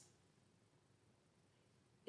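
Near silence: faint room tone in a pause between speech.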